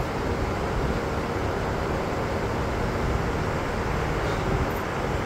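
Steady, even background rumble and hiss of a large hall, with no speech.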